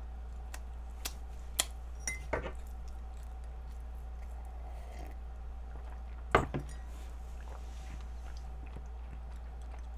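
A few light clicks and clinks of a glass milk mug being handled, the clearest about two-thirds of the way through as the mug is set down on a wooden tray, over a steady low electrical hum.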